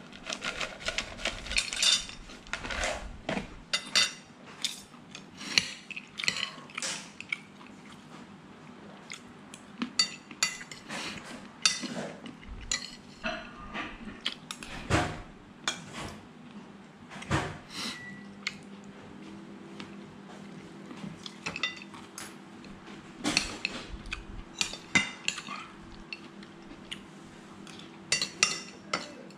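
Metal fork and spoon clinking and scraping against a ceramic plate while eating, a steady run of irregular sharp clicks.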